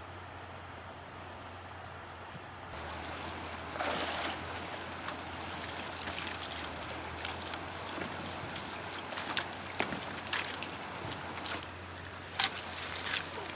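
Water sloshing and trickling, louder from about three seconds in, with many short sharp splashes and knocks.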